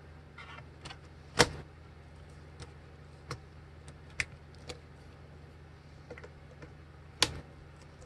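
Dell Precision M6500 laptop keyboard being lowered into its frame and pressed down: a string of sharp plastic clicks and taps, the loudest about a second and a half in and another near the end, over a low steady hum.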